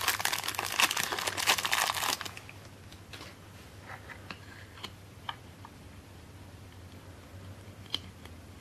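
Clear plastic wrapping around a small figure crinkling for about two seconds, then scattered light clicks and taps as the pieces are handled.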